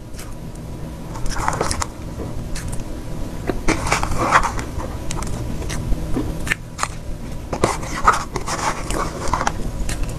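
Close-up chewing of soft box cake with cream and crumbly chocolate topping, taken in mouthfuls off a knife: wet, sticky mouth sounds with many short clicks, coming in clusters with each bite.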